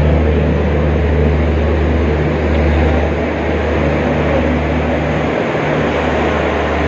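Humsafar Express passenger coaches rolling past the platform, a steady train rumble under a continuous low hum that dips briefly near the end.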